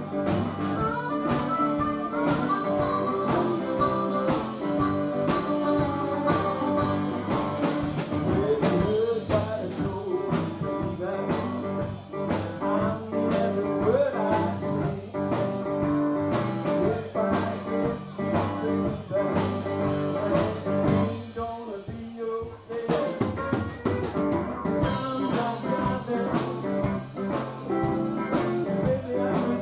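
Blues band playing live: electric and acoustic guitars over a drum kit. About two-thirds of the way through, the drums stop for a second or two, then come back in.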